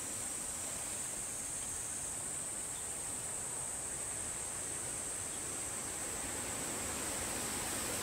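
Steady outdoor hiss with a continuous thin, high-pitched insect drone, a little weaker in the middle.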